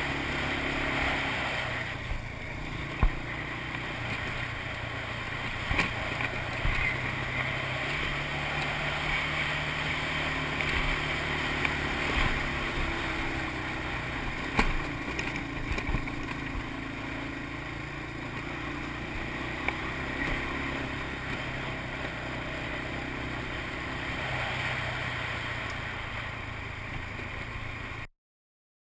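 ATV engine running steadily on a ride, with a few sharp knocks and clatter from rough ground. It cuts off suddenly near the end.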